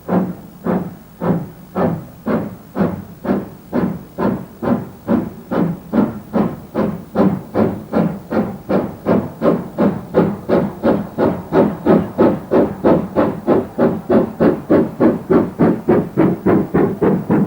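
A GWR Castle-class steam locomotive accelerating away, its exhaust chuffing in sharp, regular beats. The beats quicken from about two a second to about four a second and grow louder.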